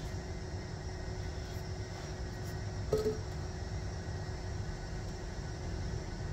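Steady low background rumble, with a brief pitched clink about three seconds in.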